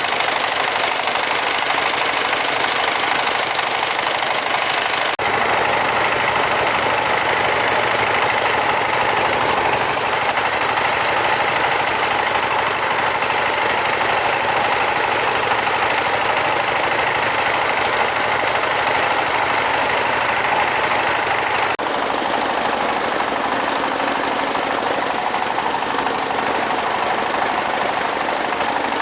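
Small engine running steadily and loudly, with the sound changing abruptly about five seconds in and again near 22 seconds.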